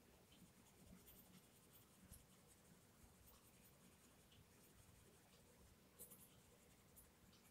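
Faint scratching of a coloured pencil shading on paper, in short irregular strokes.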